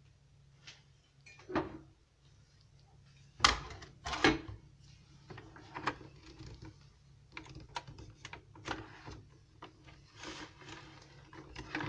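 Plastic clicks and knocks: two sharper knocks about three and a half and four seconds in, then a run of lighter clicks, as a reusable capsule is handled and fitted into a Tassimo coffee pod machine.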